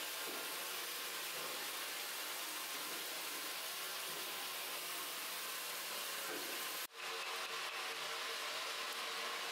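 A steady hiss with a faint low hum beneath it, cut off for an instant about seven seconds in.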